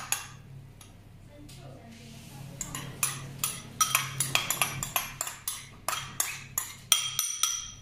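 Metal spoon clinking and scraping against a small glass bowl, about three ringing clinks a second from about two and a half seconds in, as the last of the sauce is scraped out.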